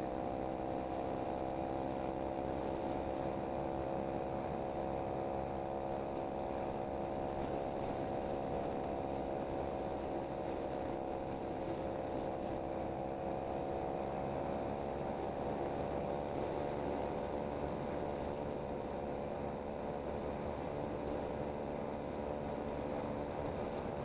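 SSR 125cc pit bike's single-cylinder four-stroke engine running under way at a steady cruise, its pitch sagging slightly midway and then rising a little.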